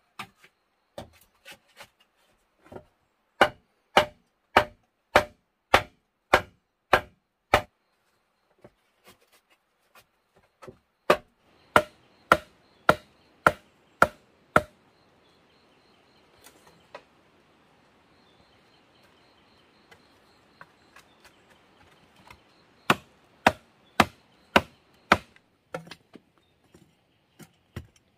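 Wooden log used as a mallet knocking on bamboo poles, in three runs of evenly spaced blows about two a second, with lighter taps between the runs.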